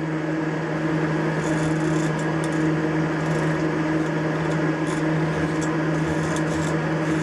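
Steady hum of a Haas CNC milling machine standing with its systems running, two constant low tones under a light noise, with a few faint ticks scattered through.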